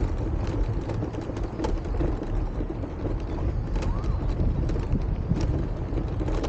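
Open-air market background noise: a steady low rumble with scattered sharp clicks and knocks.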